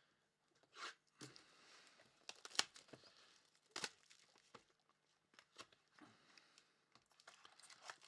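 Faint crinkling and tearing of trading-card packaging as a box and its wrapping are opened, with scattered sharp crackles, the loudest a little over two seconds in and near four seconds in.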